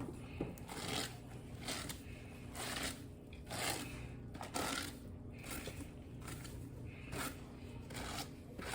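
Detangling brush dragged through a wet, shampooed wig, a series of soft scraping strokes about one a second.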